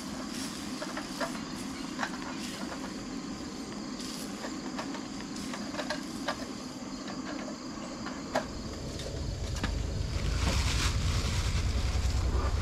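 Spatula scraping and tapping against a frying pan as eggs are scrambled on a portable gas stove, a dozen or so short clicks over a steady low hum. A low rumble swells in about nine seconds in.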